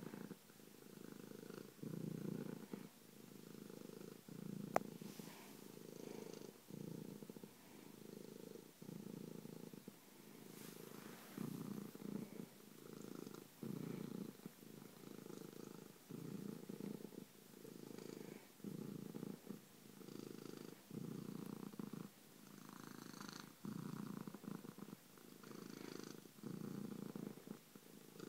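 Domestic cat purring steadily while being stroked on the head, the purr pulsing in and out with each breath about once a second. A single sharp click about five seconds in.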